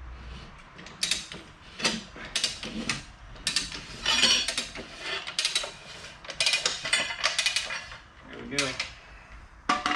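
Rabaconda tire changer being worked by hand to get a tubeless motorcycle tire off its rim: a run of irregular metallic clicks and scrapes, about one or two a second.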